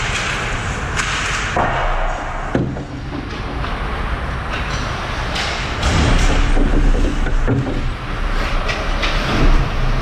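Ice hockey game sounds echoing in a rink: a constant rumbling din with scattered sharp knocks and thuds, such as sticks, puck and players hitting the boards.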